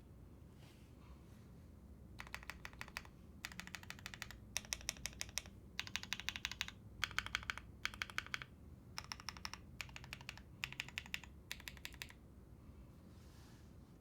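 AI03 Vega mechanical keyboard with lubed Black Cherry Pie linear switches, a full POM plate and PBT keycaps, typed on in quick runs of keystrokes with short pauses between them. The typing starts about two seconds in and stops about twelve seconds in.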